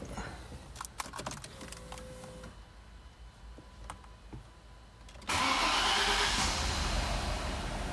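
A few clicks, then about five seconds in the Audi A6 C5's 2.4 V6 is started and runs loud and steady, misfiring on one cylinder (running rough) from a spark fault.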